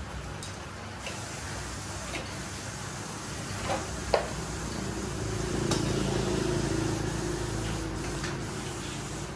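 A few sharp metal clicks from a hand tool working on a disassembled motorbike engine, the loudest about four seconds in, over a steady low hum. A low motor drone swells through the middle and fades near the end.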